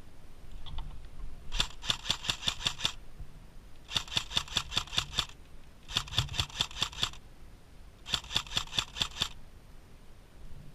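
Four bursts of sharp mechanical clicking, about seven clicks a second, each burst a little over a second long with short pauses between.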